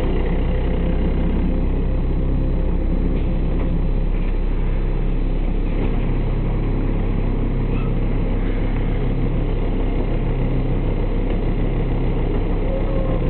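Engine of a Solaris Urbino 12 city bus idling steadily, heard from inside the passenger compartment while the bus stands at a stop.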